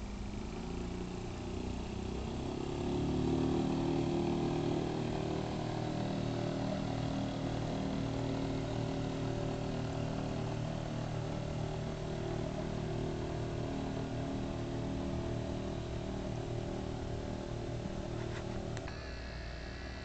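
Small outboard motor on an open boat running steadily as the boat moves off across the water, a steady engine drone that grows louder about three seconds in and eases slightly near the end.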